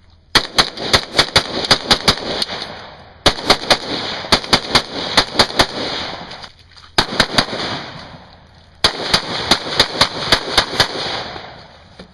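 AR-15 rifle firing rapid semi-automatic strings, about five shots a second, in four runs with brief pauses between them. Each shot rings on with echo.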